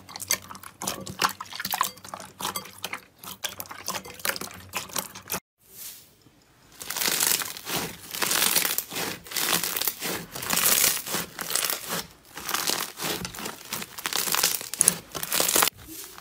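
Two slimes in turn. First, hands squish glossy, clear green slime in a glass bowl, with quick wet clicks and squelching pops. After a short break, hands squeeze and knead a yellow slime packed with small foam beads, a dense crackling crunch that comes in waves as the beads are pressed.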